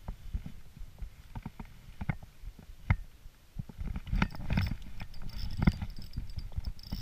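Water lapping and slapping in irregular small knocks against an inflatable belly boat, over a low rumble of wind on the microphone. From about four seconds in, a spinning reel is cranked, a faint high whirr.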